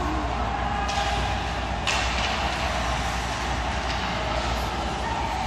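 Indoor ice rink ambience: a steady low hum and noise of the arena, with skates scraping the ice and two sharp clacks of hockey sticks about one and two seconds in.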